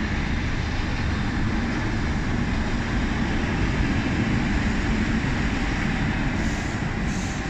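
Steady, loud rumble of passing urban traffic beneath an elevated viaduct.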